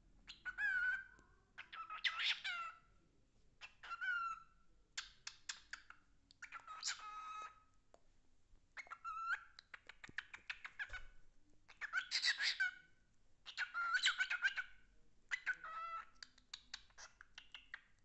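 Pet cockatiel singing: repeated bursts of chattering chirps and gliding whistles, about one every two seconds, with quick clicks in between.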